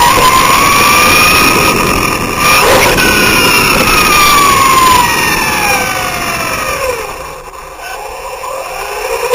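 Radio-controlled OFNA buggy's motor whining as it drives, its pitch rising and falling with the throttle over a hiss of tyres and wind on the onboard camera. A little past halfway the whine falls away as the buggy slows and the sound drops, then it picks up again at the end.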